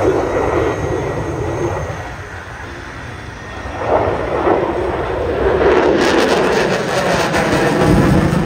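F-22 Raptor's twin afterburning turbofan engines, a loud rushing jet noise. It dips a couple of seconds in, swells again about four seconds in, and takes on a ragged crackle from about six seconds on.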